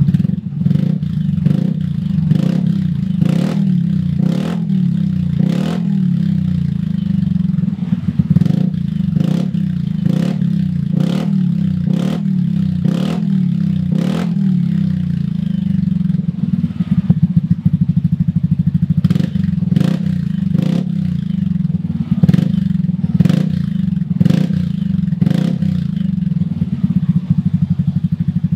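Yamaha Aerox 155's single-cylinder engine running through a Shijiro M50 aftermarket muffler, a steady low exhaust note with sharp ticks scattered through it, roughly one every second.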